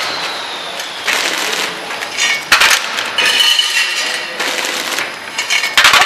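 Semi-automatic packing machine bagging small screws and nuts: several bursts of metallic clinking and clatter, the sound of fasteners dropping into the plastic bag as the machine cycles.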